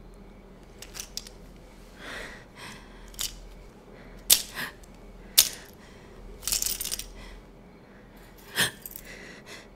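Close handling noises of things being taken from a box: scattered sharp clicks and taps, with two short spells of cloth rustling.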